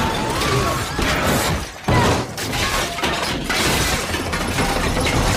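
Train-crash sound effects: glass shattering and metal crashing and scraping, with a sudden loud crash about two seconds in.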